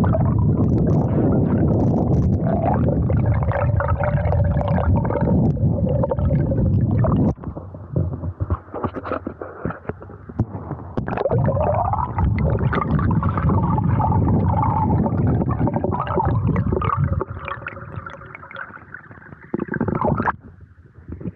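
Stream and small waterfall rushing, heard close up as a loud, low, rumbling gurgle of water. It dips briefly about seven seconds in and falls away sharply near the end.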